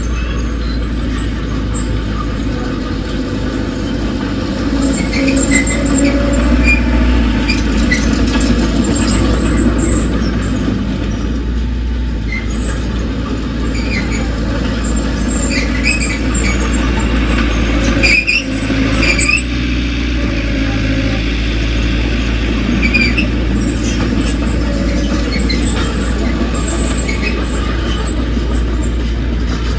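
Bulldozer's diesel engine running steadily under load, with short high-pitched squeaks from its steel tracks throughout and a brief jolt about 18 seconds in.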